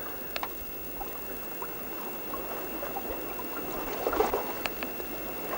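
Water rushing and trickling along a wooden sailing boat's hull under sail, with a few light clicks and a slightly louder splash about four seconds in.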